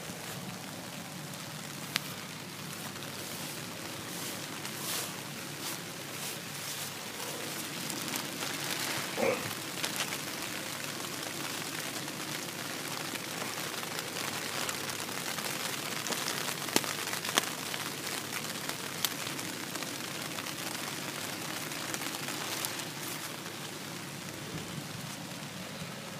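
Steady rain falling, with scattered sharp ticks of drops striking close by.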